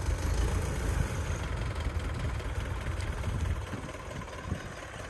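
Belarus tractor's diesel engine running steadily as it pulls a laser land leveller across the field, a low rumble that fades somewhat about three and a half seconds in.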